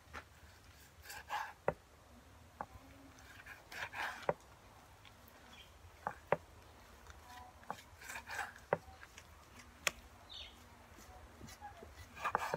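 Kitchen knife slicing raw carabao meat on a wooden chopping board: irregular sharp knocks of the blade hitting the board, roughly one a second, with a few short scraping sounds as the blade draws through the meat.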